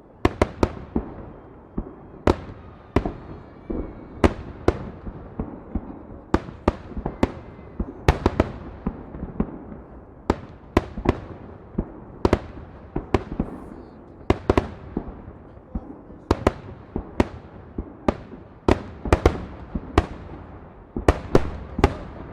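Fireworks salute: an irregular string of sharp bangs from bursting shells, often one or two a second, with a rumbling echo between.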